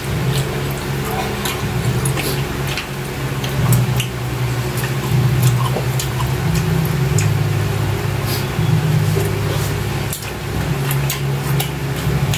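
Two people eating grilled chicken with their hands: chewing and mouth sounds, with many small clicks as fingers tear the meat, over a steady low hum.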